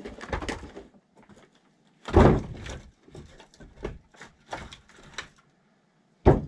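Firewood logs knocking: a string of wooden knocks and thuds, the heaviest about two seconds in and another sharp one near the end.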